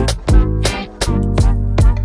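Background music with a steady drum beat over a bass line and pitched instrument notes.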